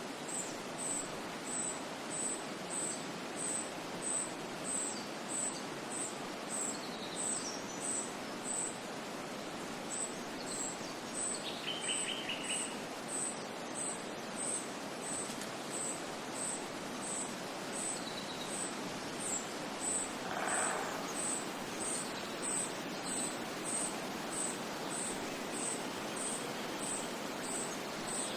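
Nature ambience: a steady rushing noise with a high-pitched insect, likely a cricket, chirping very regularly about twice a second, and a few scattered bird calls.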